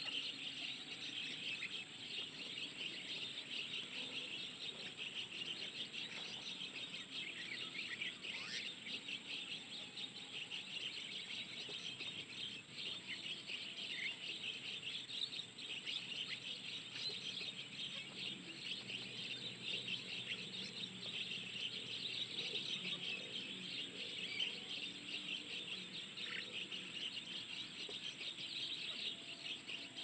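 A dense, continuous chatter of small birds chirping, mixed with insects trilling, over a steady high-pitched whine.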